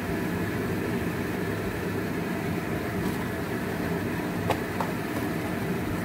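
Steady low mechanical drone, with two light clicks about four and a half seconds in.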